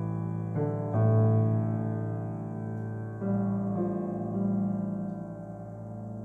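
Solo piano playing a slow improvised piece: several chords struck a second or so apart, each left to ring and slowly fade.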